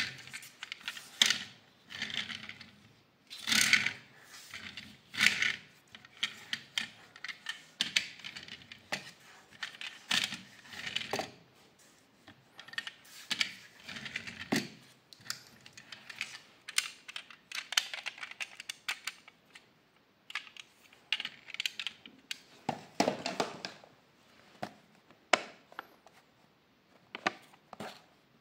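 A small die-cast toy car handled and rolled on a tabletop: irregular clicks, taps and rattles from its parts and wheels. Near the end, a cardboard box with a clear plastic window is picked up and handled.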